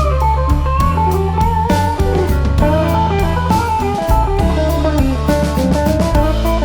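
Background music: guitar-led instrumental with bass and drums and a steady beat.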